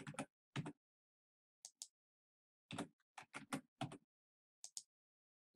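Faint computer keyboard keystrokes: about fifteen short clicks in small, irregular groups with pauses between them.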